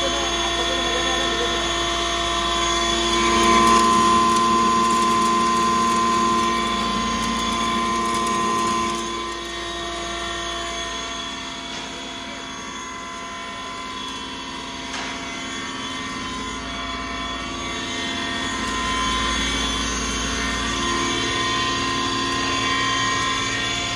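Stoneless pulveriser grinder and its blower fan running while grinding maize: a steady mechanical whine made of several held tones over a hum. It grows louder about three seconds in and eases off again about nine seconds in.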